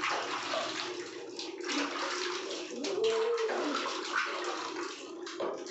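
Water splashing and sloshing in a plastic basin as hands wash a cat, with the cat giving one drawn-out meow that rises and falls about three seconds in.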